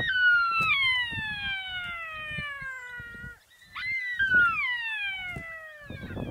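African golden wolf howling: two long, high, light howls, each starting high and sliding steadily down in pitch, with a brief break between them just past the middle.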